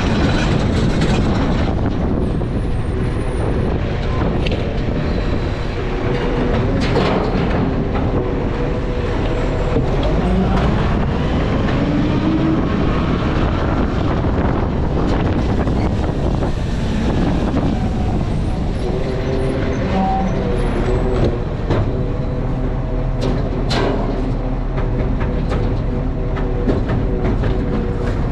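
Garbage truck's diesel engine running loud and steady, its pitch rising and falling around the middle of the stretch as it revs. A few sharp clicks are heard.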